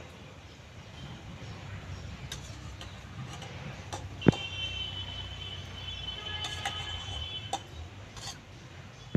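A steel spoon clinking against a stainless steel bowl while rice is served out of it; one sharp clink about four seconds in leaves the bowl ringing for a few seconds, with a few lighter clinks around it. A low steady hum runs underneath.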